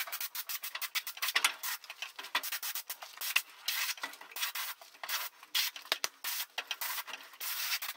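Air-fed undercoating spray gun spraying Fluid Film rust preventive onto a mower deck, the trigger pulsed in many short hissing bursts.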